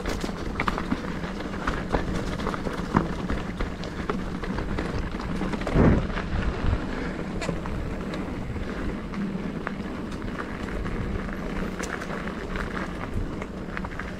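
Mountain bike riding over rough trail: wind buffeting the microphone, steady tyre rumble and frequent knocks and rattles from the bike.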